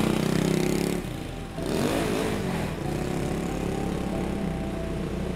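Road traffic: motor vehicle engines running and passing close by, loudest in the first second, with one engine rising in pitch about two seconds in, then a steady engine drone.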